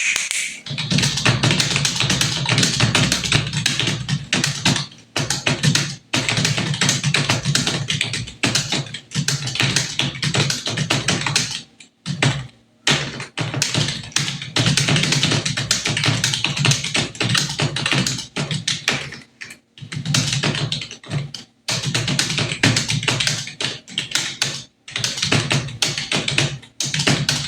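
Fast typing on a computer keyboard: a dense, rapid run of keystrokes, broken by short pauses of under a second several times.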